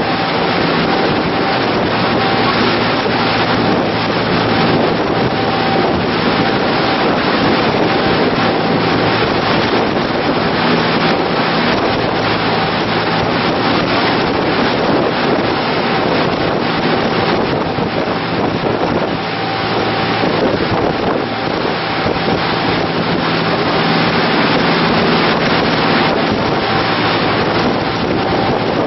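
Wind buffeting the microphone over the steady low drone of a motor tour boat's engine under way, with water rushing from the churning wake.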